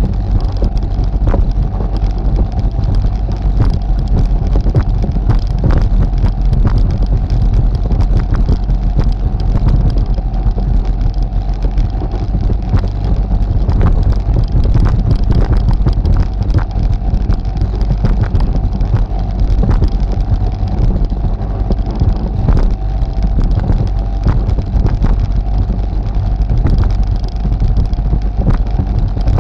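ATV engine running steadily as the ATV drives through deep water on a flooded trail: a low rumble with a steady high whine over it, and frequent short splashes and knocks.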